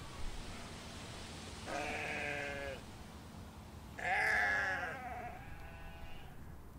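Sheep bleating twice, about two seconds apart, the second bleat louder and trailing off longer, over a steady background hiss.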